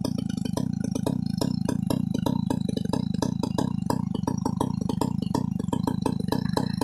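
New West 568 two-stroke chainsaw idling after a cut, with a steady low drone and a quick, slightly uneven pulsing of the engine firing.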